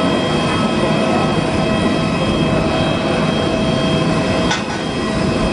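Steady whine and rumble of the parked Airbus A320's turbine, several steady tones held over a continuous rumble.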